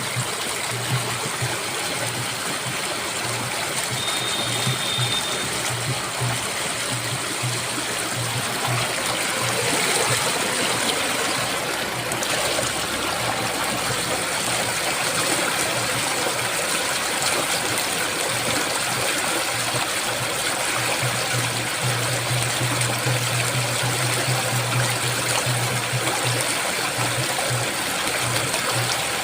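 Steady rush of flowing water, like a river or waterfall, a continuous even hiss.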